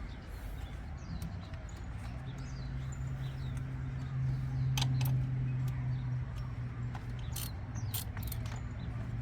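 Small birds chirping over a steady low hum, with a few sharp clicks about halfway through and again near the end.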